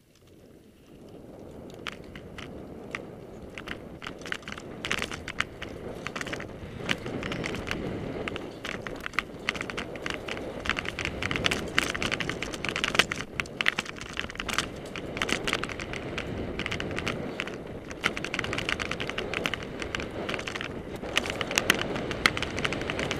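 Mountain bike riding fast down a dirt trail: a steady rush of tyre and riding noise that builds over the first couple of seconds, with frequent rattling clicks and knocks as the bike goes over bumps.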